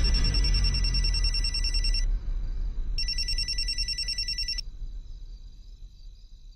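Mobile phone ringing with a fast electronic trilling ring, like an old telephone bell: two rings of about two and a half and one and a half seconds, with a short pause between. A deep low rumble runs underneath and fades away over the second half.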